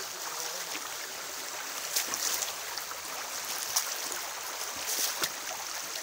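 Shallow river running over rocks: a steady rush and trickle of water, with a few sharp splashes from children playing in it, the loudest about two seconds in and just before the four-second mark.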